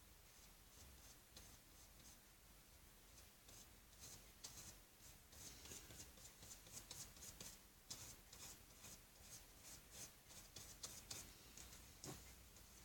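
Faint strokes of a paintbrush laying acrylic paint onto canvas, short and several a second, growing busier about four seconds in.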